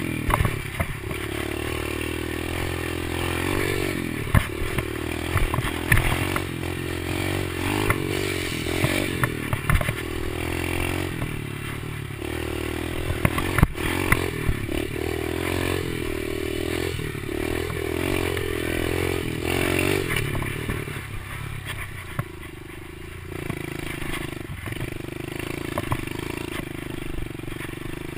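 Kawasaki KLX110 pit bike's small four-stroke single-cylinder engine running under load on a dirt trail, its pitch rising and falling over and over as the throttle is worked. Frequent knocks and clatter run through it, with one sharp knock about halfway. The engine eases off briefly about three quarters of the way through.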